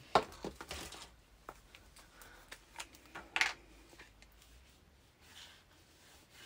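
Handling sounds of a Tombow liquid glue bottle on cardstock: a sharp click just after the start, a few light taps, then a louder scratchy stroke about three and a half seconds in as the applicator tip is drawn across the card, and faint rustles after. The glue's tip seems clogged.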